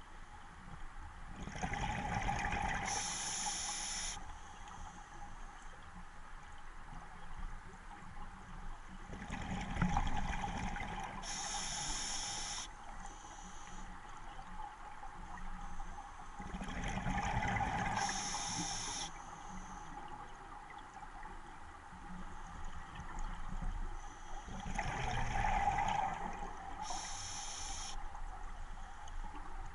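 Scuba diver breathing through a regulator underwater: four breath cycles about seven to eight seconds apart, each a gurgling rush of exhaled bubbles followed by a short high hiss of inhalation.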